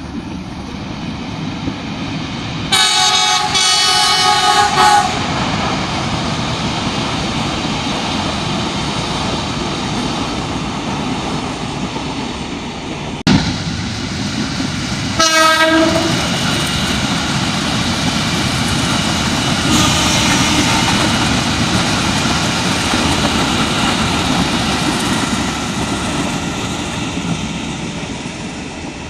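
Train passing close by with a steady rumble and clatter of wheels on rails. Its horn sounds for about two seconds a few seconds in, and gives a shorter blast about halfway through; the rumble fades near the end.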